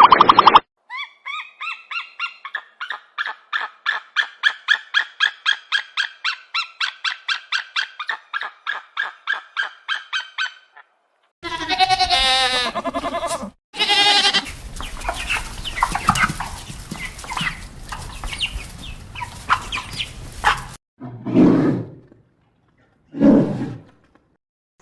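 A string of different animal calls in separate short clips. First comes a long run of quick, evenly repeated pitched calls, about four or five a second for some ten seconds. Then a brief warbling call, a stretch of noisy rustling with clicks, and two short low calls near the end.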